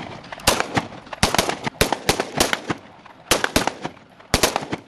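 Rifles firing on a live-fire range: about fifteen sharp shots in an irregular string, many in quick groups of two or three, with short gaps between the groups.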